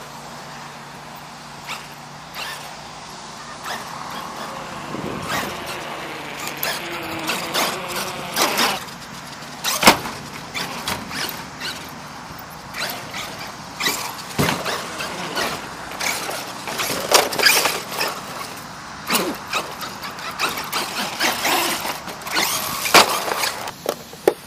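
Traxxas E-Revo 2.0 RC monster truck driving over skatepark ramps: its electric motor whines up and down as it is throttled, with repeated knocks and bangs as the truck lands and strikes the ramps. The loudest bang comes about ten seconds in.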